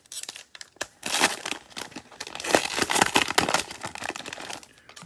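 Cellophane wrapper of a Mosaic football card cello pack crinkling and tearing as the pack is opened, a dense crackle that is loudest about two and a half to three and a half seconds in.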